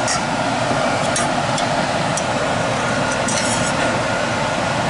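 Steady drone of a fan, with a few light clinks and scrapes of a metal spatula in a stainless skillet of scrambled eggs.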